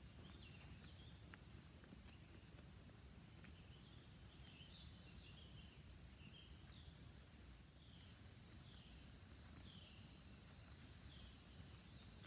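Faint outdoor ambience: a steady high-pitched drone of insects, growing a little louder about two-thirds of the way through, with a short chirp repeating about once a second.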